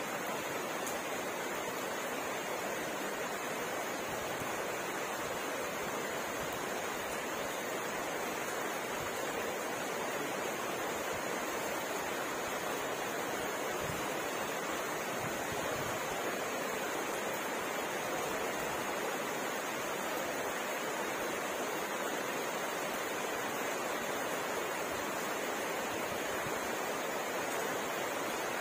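Steady rain falling at night, an even, unbroken hiss.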